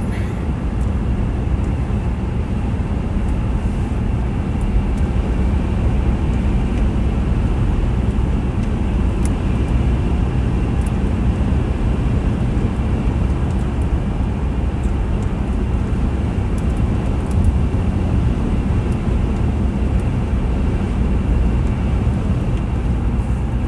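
Steady road and engine noise inside a moving car's cabin, a low, unbroken rumble of tyres and engine.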